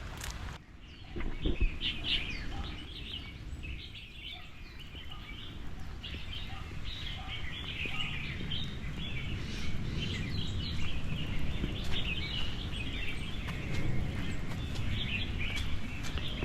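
A chorus of small birds chirping and twittering, many overlapping short calls, over a steady low background rumble.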